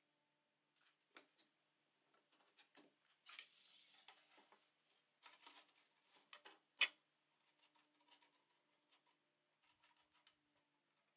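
Faint, scattered clicks, taps and scrapes of a wooden floorboard, a tape measure and a featherboard being handled on a table saw's metal top, with the saw switched off. A short scraping slide a little over three seconds in and one sharper click near seven seconds stand out.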